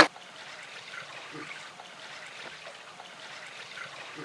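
Faint, steady watery rushing, with a short sharp knock right at the start.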